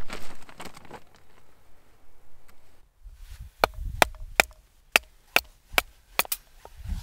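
Knife batoned with a wooden stick to split a small upright stick standing on a wooden block: about eight sharp knocks, two to three a second, beginning about halfway in, several with a short metallic ring from the blade. A soft rustle comes before them at the start.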